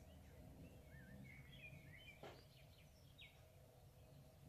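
Near silence: faint birds chirping in the background over low room noise, with one faint tap about two seconds in.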